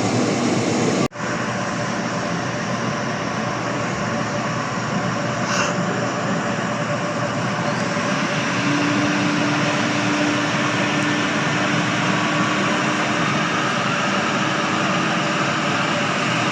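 Steady, loud roar of jet aircraft engines, cut by a brief dropout about a second in, with a faint steady whine joining past the middle.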